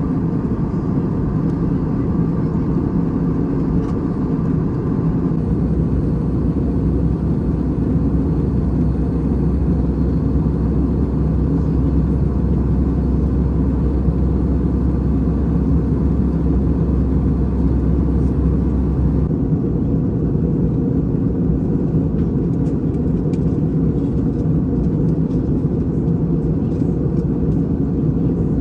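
Steady low rumble of an Airbus A320 in flight, engine and airflow noise heard inside the cabin. A deeper hum joins about five seconds in and drops away about a dozen seconds later.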